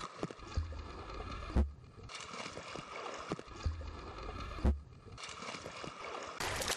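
Pool water splashing and churning under a swimmer's strokes, with a dull low thump twice, each followed by a short break in the sound.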